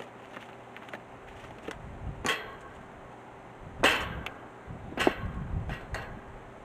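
Rocks dropped and packed by hand into the post hole at the foot of a steel gate post: a few sharp knocks, three louder ones a little over a second apart and some fainter ones between.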